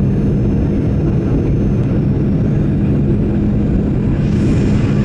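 Steady in-flight cabin noise of a Boeing 737-900ER: the drone of its CFM56 turbofan engines and rushing air, with a steady low hum. About four seconds in a brief rise in hiss joins it.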